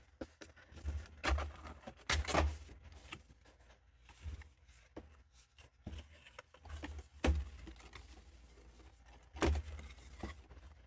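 Hands handling and unwrapping blind-box toy packaging: irregular rustling, scraping and light taps, with a few louder handling bumps about two seconds in, past seven seconds and near the end.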